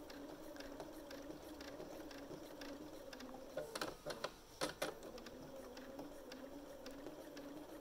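Bernina 570 sewing machine stitching steadily at free-motion speed, a faint even hum, with a few light clicks a little past halfway.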